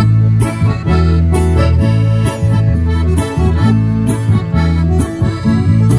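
Instrumental band music: accordion playing sustained chords and melody over a strummed twelve-string acoustic guitar and a bass guitar line, with no singing.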